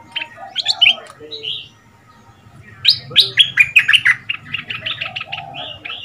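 Caged stripe-throated bulbul singing: a short burst of sharp, bubbly notes at the start, then about three seconds in a longer, loud phrase of rapid notes, several a second.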